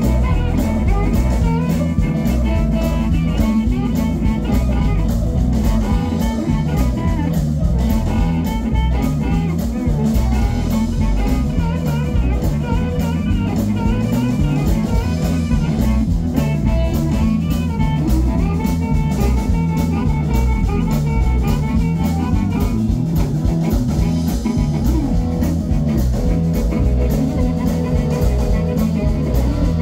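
Live blues band playing: amplified harmonica over electric guitar, bass guitar and drum kit, loud and steady.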